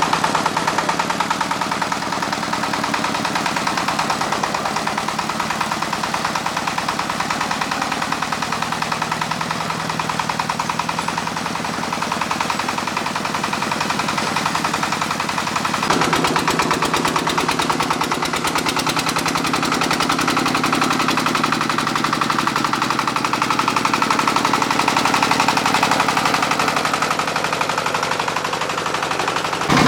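Single-cylinder diesel engine of a công nông two-wheel tractor running with a rapid, even chugging. About sixteen seconds in it gets louder and higher.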